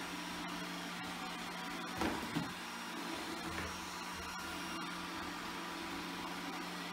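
iRobot Roomba 980 robot vacuum running with a steady hum, with two short knocks about two seconds in.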